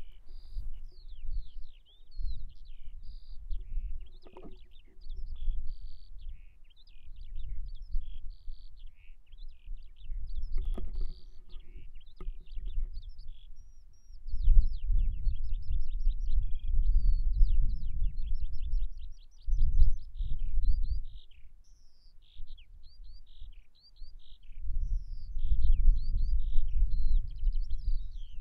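Small birds singing continuously, a run of quick chirps and short falling trills, over a low rumble that swells and fades, loudest about halfway through and again near the end.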